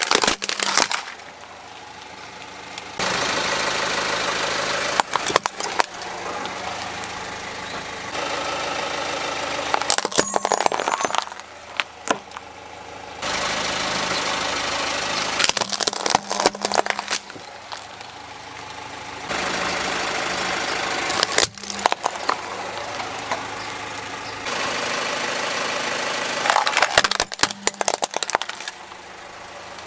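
A car tyre rolling slowly over plastic toys and crushing them: a cluster of sharp cracks and crunches about every five seconds, six in all, with the car's engine idling steadily in between.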